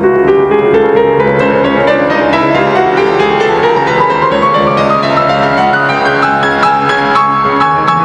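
Background piano music, with note after note struck and a melody that climbs steadily higher.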